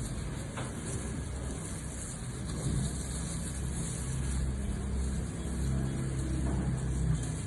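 A motor running with a low, steady hum that grows somewhat louder about three seconds in.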